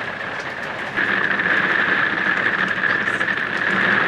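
Rain and hail drumming on the roof of a fifth-wheel RV, a dense steady patter of small hits that gets louder about a second in.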